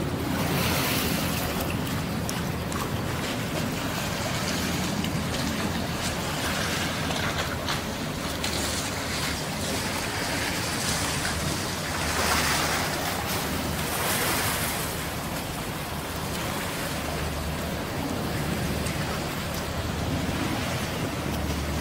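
Wind and choppy river water: a steady rushing noise that swells in several brief gusts, over a low steady hum.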